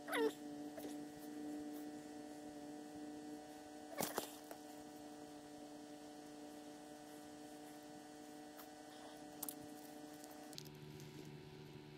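A steady low hum with several overtones, dropping to a lower pitch near the end. A few light clicks and taps come through as the tip-up and line are handled.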